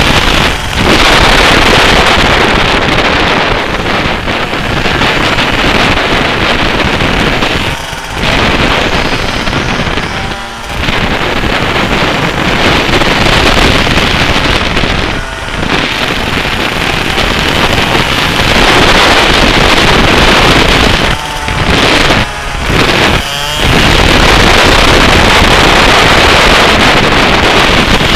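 125cc two-stroke kart engine running hard on a lap, with wind buffeting the onboard microphone. The engine note drops briefly several times as the throttle is lifted for corners, including three quick lifts in a row a little over 20 seconds in.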